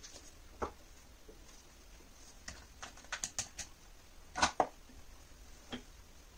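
Scattered light clicks and taps from handling a plastic samosa press and dough, with a quick run of clicks in the middle and a louder double click just after it.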